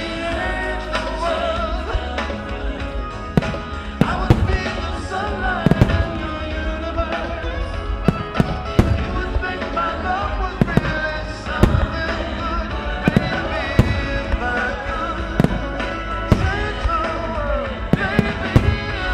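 Aerial firework shells bursting, sharp bangs every second or two, over continuous music with a wavering melody that the fireworks are set to.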